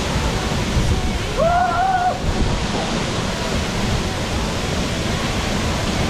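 Waterfall rushing steadily. A person's short held cry cuts through it about one and a half seconds in.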